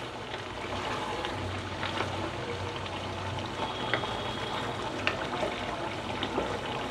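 Beef pieces simmering in their own released juices in a non-stick pan, a steady watery hiss, with a wooden spatula stirring through the meat and giving a few light taps.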